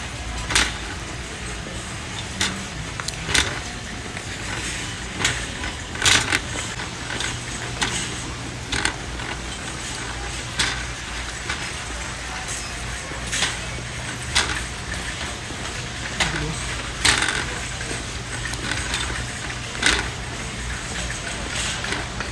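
Car driving, heard from inside the cabin: a steady low road and engine rumble, with irregular sharp clicks and rattles.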